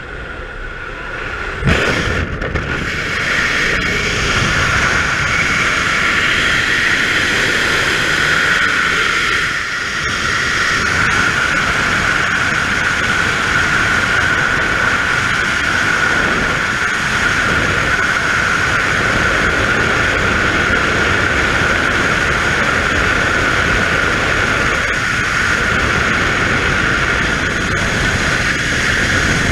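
Freefall wind on a skydiver's camera: after a short stretch of aircraft noise at the open door, the sound jumps up sharply about two seconds in at the exit and becomes a loud steady rush of air with a high whistle running through it.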